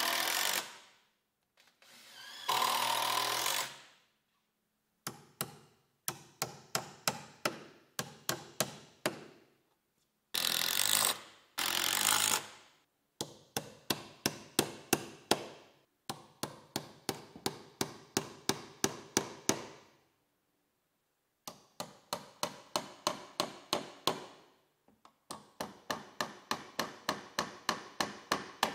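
DeWalt 20V cordless drill driving screws into wooden framing in a few short runs, alternating with long series of quick claw-hammer blows, about three a second, nailing electrical outlet boxes onto wooden boards.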